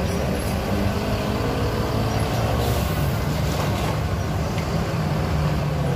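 Mercedes-Benz OH 1626 coach's rear-mounted diesel engine running in a steady low drone as the bus pulls slowly round a tight hairpin bend, with motorcycle engines passing close by.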